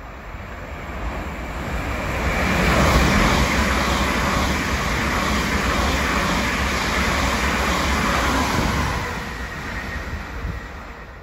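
A Great Northern Class 387 electric multiple unit passing through at speed: wheels on rail and the rush of air. The noise builds as it approaches, holds loud while the coaches go by, and fades as it runs away.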